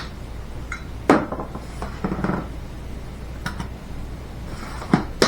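Kitchen dishes and utensils clinking and knocking while a cup of sugar is measured out and added. There are a few sharp clinks: one about a second in, one midway, and two close together near the end.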